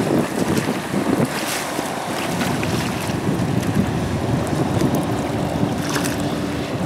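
Personal watercraft engine running as it speeds past close by and moves off, with the rush of its spray and wind buffeting the microphone; a steady hum comes in about halfway through.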